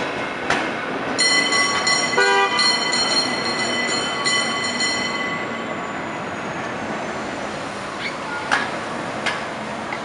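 San Francisco cable car bell clanging in a quick run of strikes for about four seconds, then ringing out as it fades, over the rumble of the passing cable car and street traffic. A short horn toot comes about two seconds in.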